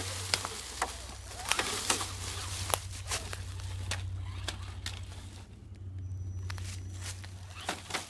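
Dry leaves crunching and crackling as an Axial AX10 Deadbolt RC rock crawler drives over leaf litter, mixed with footsteps through the leaves. A steady low hum runs underneath.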